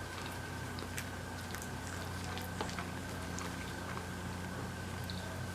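A person chewing food close to the microphone, with scattered small clicks and taps, over a steady low electrical hum.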